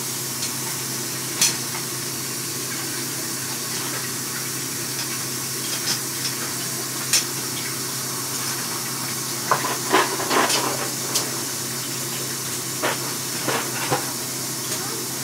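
Cookware being handled: a scatter of sharp clinks and knocks of utensils against pots and pans, bunched together about ten seconds in, over a steady hiss and low hum.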